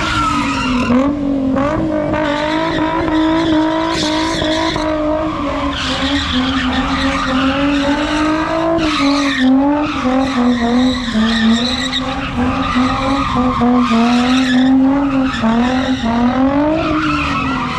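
A car drifting at a meet: the engine is held at high revs, its pitch wavering up and down continuously, while the tires squeal and skid.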